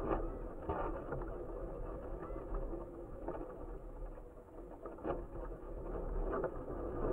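Wind rushing and buffeting over an action camera carried aloft on a kite, a steady muffled rumble that rises and falls, with a few brief flaps or knocks from the kite.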